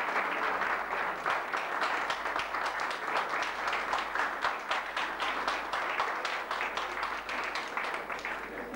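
Audience applauding: many people clapping, thinning out toward the end.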